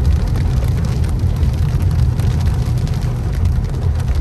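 Car driving on a wet road in heavy rain, heard from inside the cabin: a steady low road and engine rumble, with raindrops pattering on the windshield and roof.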